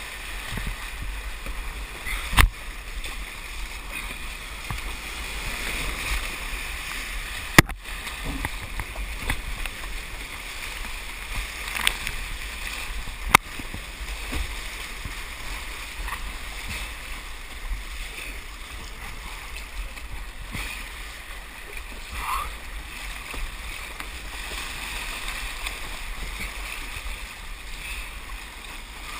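Whitewater rushing and splashing around a slalom kayak running a rapid, with paddle strokes in the water, heard close up from a camera on the kayak's deck. A few sharp knocks stand out, three of them in the first half.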